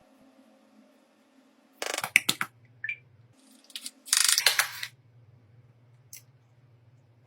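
Two short bursts of rapid clicking and clattering from small hard parts or tools being handled, about two and four seconds in, over a faint steady hum.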